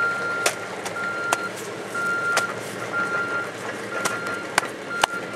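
Vehicle backup alarm beeping: a single high tone, about half a second on and half a second off, roughly once a second. A few sharp clicks or knocks come in between.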